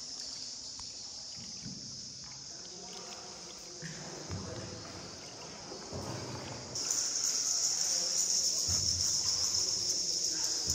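Insects calling in a steady, high-pitched drone, which grows abruptly louder about seven seconds in.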